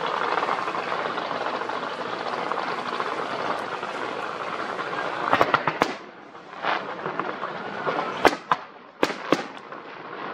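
Fireworks display: a dense, steady hissing crackle for about the first five seconds, then a run of sharp bangs from bursting fireworks, the loudest about eight seconds in.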